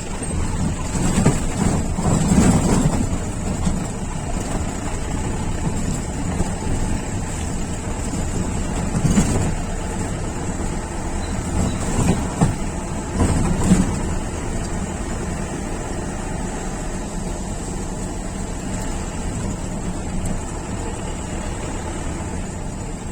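Jeep engine running steadily while driving an off-road track, with a few louder bumps about two seconds in and again between about nine and fourteen seconds.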